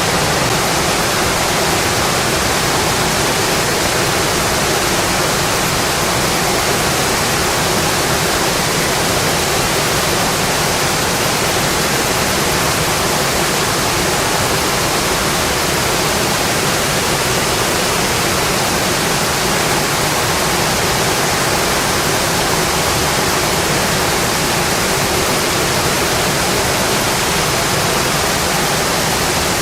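Steady, heavy rainfall: an even, unbroken hiss with no separate drops, thunder or changes.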